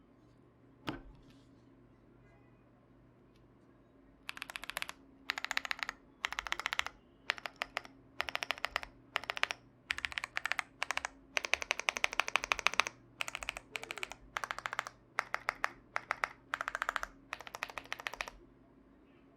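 Fast typing on a YUNZII AL66 mechanical keyboard fitted with DK Creamery Cookies and Cream tactile switches, with PE foam between plate and PCB. After a single click about a second in, the keystrokes start about four seconds in and come in rapid bursts of half a second to a second and a half, with short pauses between them.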